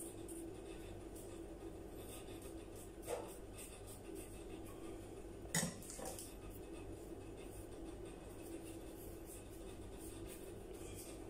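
A few light clicks of small hard objects being handled, the loudest about halfway through, over a steady low hum.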